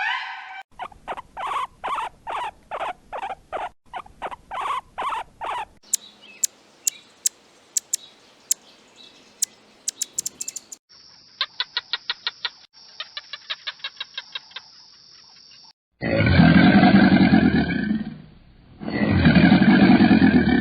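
A string of different animal calls cut one after another. First a bird chirps in a steady rhythm, about three calls a second. Then come sharp high tweets, then rapid trills, and in the last few seconds two loud, long, deeper calls.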